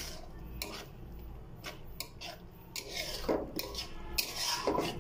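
A spatula scraping and clinking against a metal pan as a thick tomato and chicken mixture is stirred. The strokes are irregular and get louder in the second half.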